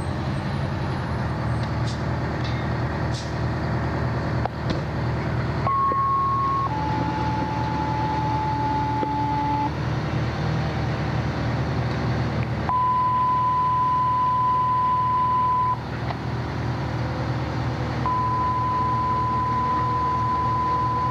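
Fire engine's diesel engine running at a low, steady rumble as the truck pulls up and sits at a hydrant. Over it come several long steady beep tones, each lasting one to a few seconds, with a few sharp clicks in the first few seconds.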